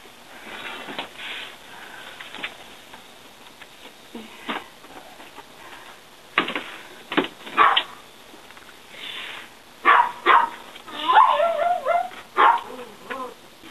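A dog barking in short, sharp barks, a few about six to eight seconds in and more from about ten seconds, with wavering whines around eleven to twelve seconds.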